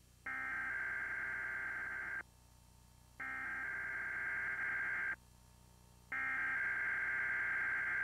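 Emergency Alert System SAME header: three bursts of screeching digital data tones, each about two seconds long, with about a second's gap between them. The header opens a Required Weekly Test alert on a cable TV channel.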